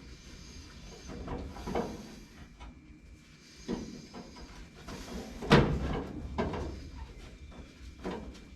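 Hand work on a car door's window hardware: a handful of metal knocks and scrapes, the loudest about five and a half seconds in.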